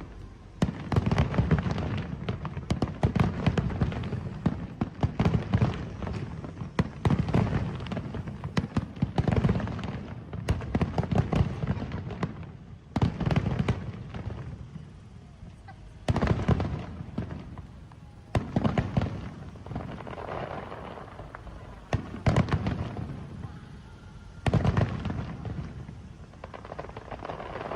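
Aerial fireworks going off in rapid volleys: dense bangs and crackling that come in waves every two to three seconds.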